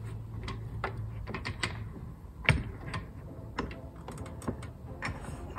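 Metal sash clamps being set on a glued wooden window frame: irregular clicks and knocks of the clamp bars and jaws against the wood, with one sharper knock about two and a half seconds in.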